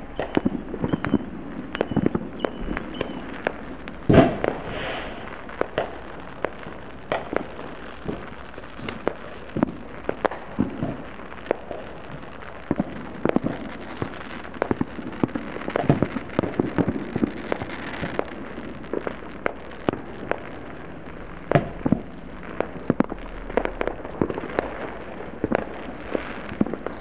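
Fireworks and firecrackers going off far below across a town, an irregular run of many sharp pops with no break, the loudest about four seconds in.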